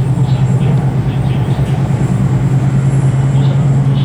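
Steady running noise heard from inside an E5 series Shinkansen car: a constant low hum over the rumble of wheels on rail.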